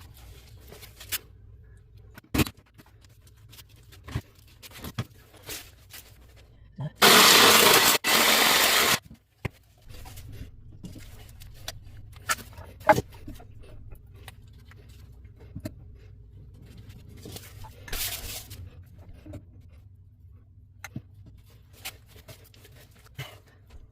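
Plumbing work on a toilet flange: scattered knocks and clicks over a faint low hum, with a loud harsh noise for about two seconds some seven seconds in and a shorter one near eighteen seconds.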